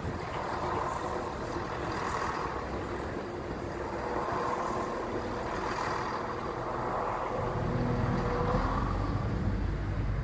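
Train passing over the level crossing: a steady rumble of wheels on the rails, with a deeper low rumble building up about three-quarters of the way through.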